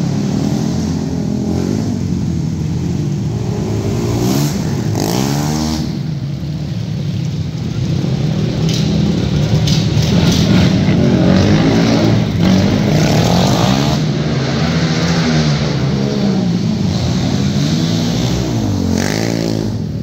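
Sport-quad racing engines on a dirt track: 450cc single-cylinder four-strokes revving hard, their pitch repeatedly rising and falling as the riders throttle up and back off through the turns.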